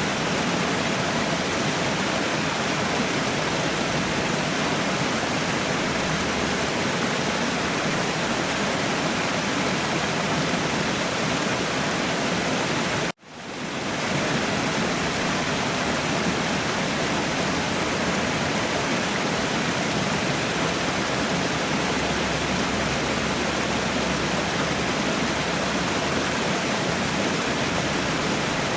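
Waterfall rushing in a steady, dense roar of falling water. About halfway through the sound cuts out abruptly and fades back in within half a second, like a splice in the recording.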